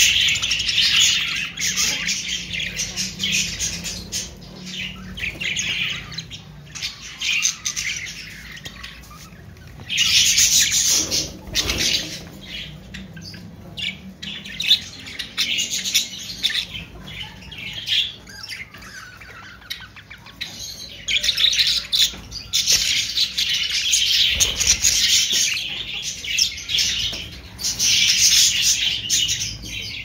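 A flock of caged budgerigars chattering and chirping continuously, with the chatter swelling louder at several points.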